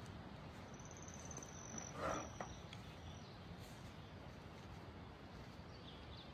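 Faint outdoor quiet with a high, rapid trill from a small creature, lasting about a second, then heard twice more briefly. A short, louder rustle or knock comes about two seconds in.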